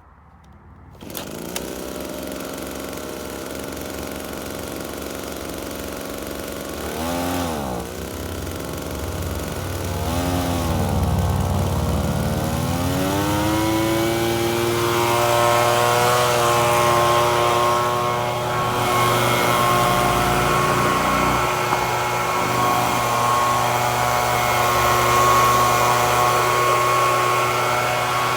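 FUXTEC FX-LBS126P petrol leaf blower's small two-stroke engine running, now that its torn fuel intake hose has been replaced. It sets in about a second in and gets two short throttle blips. It then revs up and holds a steady high speed.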